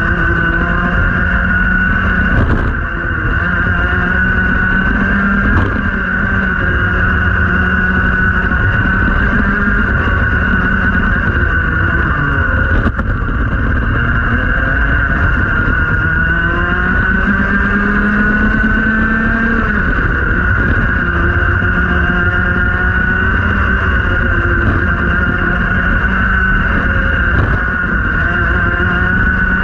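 Rotax Max 125cc two-stroke single-cylinder kart engine running at racing revs, heard onboard. Its pitch drops as it slows for a tight corner about twelve seconds in, then climbs again as it accelerates out.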